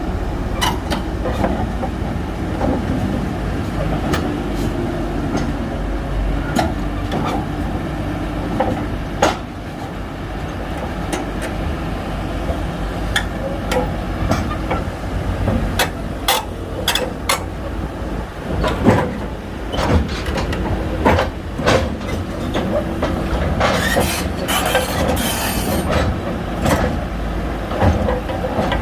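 Shantui crawler bulldozer's diesel engine running under load, with its steel tracks clanking and knocking irregularly as it works, and a brief hiss about three-quarters of the way through.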